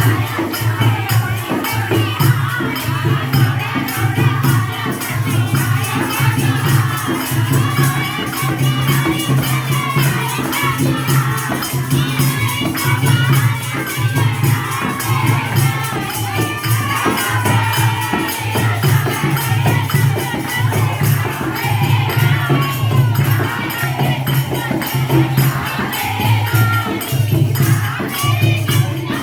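Live Hindu devotional singing of Mata jagrata bhajans: voices carrying a wavering melody over a heavy pulsing bass and a fast, steady percussion beat, with crowd noise throughout.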